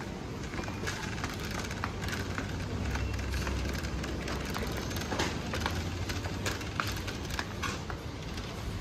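Supermarket background sound: a steady low hum under a general haze of noise, with scattered small clicks and knocks.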